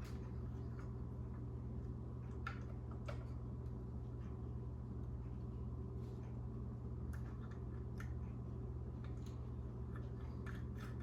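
Scattered light clicks and taps of small instrument-cluster parts being handled and fitted, a few about two to three seconds in and more often near the end, over a steady low hum.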